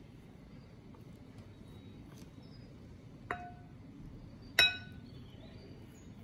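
A spoon clinks twice against a glass bowl while mixing slime, about a second and a half apart, the second strike louder; each strike rings briefly.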